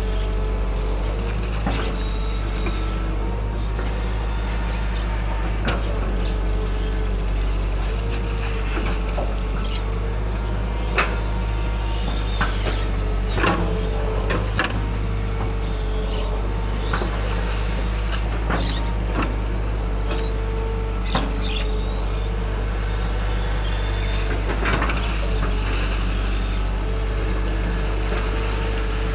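Hydraulic excavator working: its diesel engine runs with a steady low drone, and a hydraulic whine repeatedly rises in and drops out as the arm moves. Scattered sharp knocks and clanks, the loudest about a third and almost half way in.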